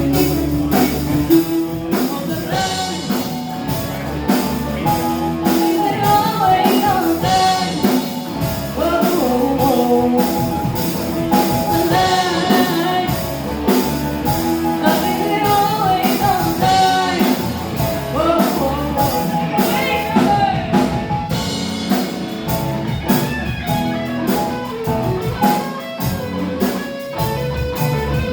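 Rock band playing, with drum kit, electric guitar and singing.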